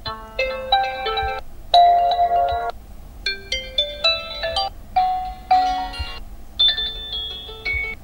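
Stock Realme GT2 Pro ringtones previewing one after another: about five short chime-like melodic snippets, each cut off after a second or so when the next tone in the list is selected.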